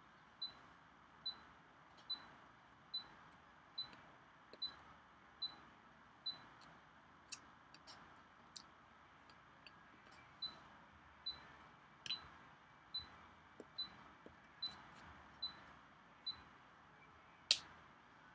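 Faint, regular high-pitched ticks or pips, a little more than one a second, that stop for a few seconds midway and then resume, with a few sharper clicks scattered among them and one louder click near the end.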